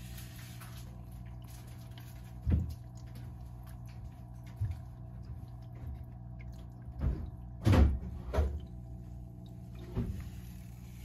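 Pet water fountain running with a steady low hum, broken by about six short, dull knocks at irregular intervals as a kitten paws at the fountain. The loudest knocks come in a quick cluster a little past halfway.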